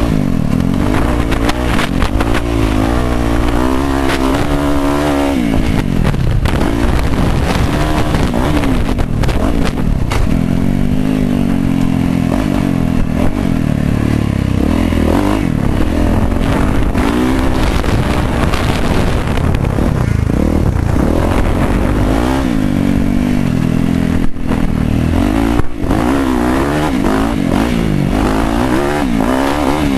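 Yamaha YZ450F's single-cylinder four-stroke engine heard from on board, revving up and falling back again and again as the rider works the throttle and gears around a motocross track, with wind and noise from the dirt. Two sharp knocks come about two thirds of the way through.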